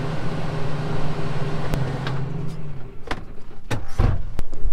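Case IH tractor engine running, heard from inside the cab, shut off just under three seconds in. After that come several sharp clicks and a heavier thump from the cab door.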